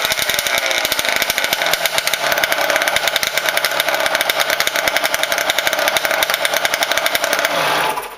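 Yamaha YL1 roadracer's 100cc two-stroke twin with GYT kit, running on a stand with a rapid, fast-firing exhaust beat. The revs climb a little in the first second or so, hold high and steady, then cut off abruptly near the end.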